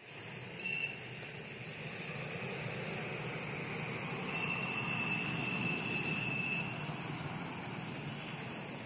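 Outdoor background noise: a steady low rumble with no clear single source, and a thin high tone held for about two seconds midway.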